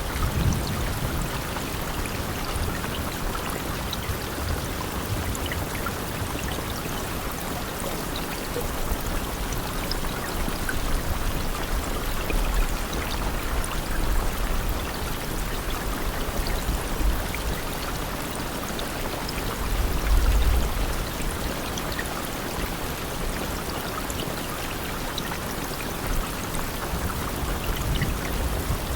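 Steady rain: a dense, even hiss of falling water with scattered individual drop ticks. Low rumbles swell and fade beneath it, the strongest about two-thirds of the way through.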